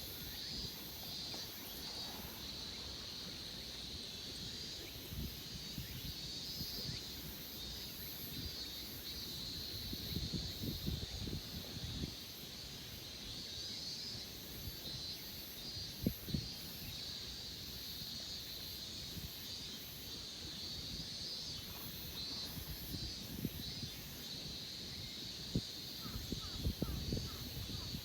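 Outdoor ambience: wind buffeting the microphone in uneven low gusts over a steady, high, pulsing buzz, with a few light knocks near the middle and toward the end.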